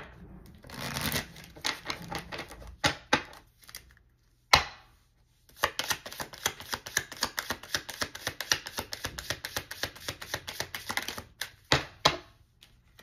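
A deck of tarot cards being handled: a few sharp taps and a brief slide of cards, then a fast, even run of card clicks for about six seconds as the deck is shuffled, ending with one last sharp tap.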